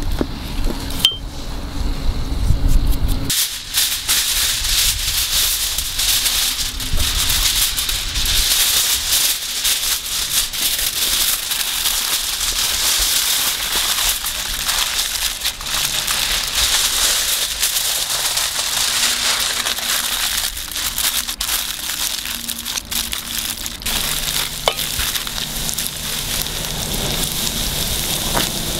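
Aluminium foil crinkling and rustling as it is folded by hand around a raw tomahawk steak, a dense run of small crackles that starts a few seconds in after a low rumble.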